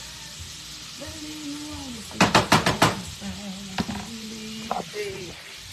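Shrimp sizzling steadily in a frying pan. About two seconds in, a quick run of about five sharp knocks of a utensil against the pan, then two more single knocks a little later.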